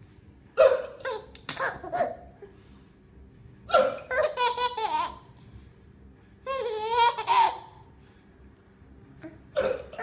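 A man hiccuping, each sharp hiccup followed by a small child's high-pitched burst of laughter. This happens a few times, with quiet gaps between.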